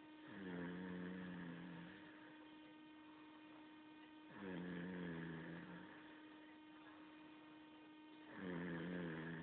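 Snoring: three drawn-out, pitched snores about four seconds apart, over a steady electrical hum.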